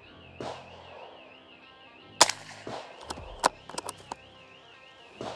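.22 LR lever-action rifle (Derya TM22 LA-18) firing a sharp shot about two seconds in, followed within two seconds by a second shot and a quick run of smaller cracks and clicks. Softer noises come near the start and end, and background music with a wavering high tone plays underneath.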